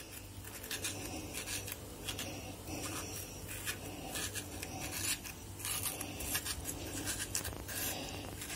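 A toothpick pricking and scratching the flesh of a hollowed-out onion, making holes: a run of faint, irregular little scrapes and taps, over a low steady hum.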